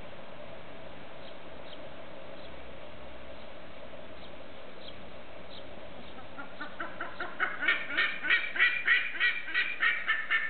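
A bandurria (Theristicus ibis) giving its loud, harsh call in a rapid series of about four or five notes a second. The calls start about six seconds in, build in loudness and are still going at the end.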